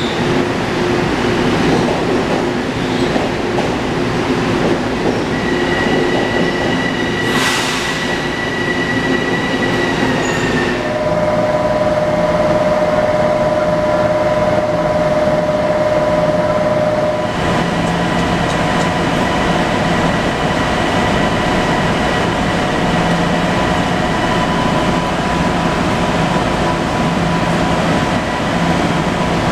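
LIRR M7 electric multiple-unit train rolling slowly along the platform and coming to a stop, with steady electric hum and whine from its equipment. A short burst of hiss comes about seven seconds in. From about eleven seconds on the rolling noise drops away and only the standing train's steady hum remains.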